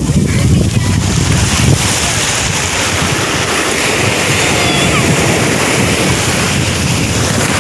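Surf washing in over a shallow sandy beach, a steady rushing of waves, with wind buffeting the microphone as a heavy low rumble.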